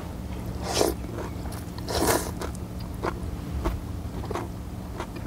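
A person eating chicken and noodles from soup close to the microphone: chewing and biting, with two short slurps about one and two seconds in and small clicks.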